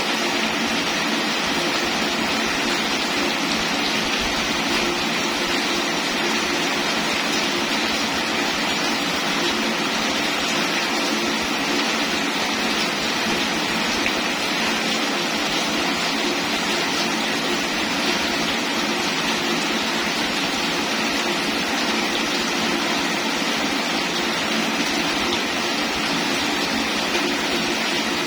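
Steady rain falling, an unbroken even hiss.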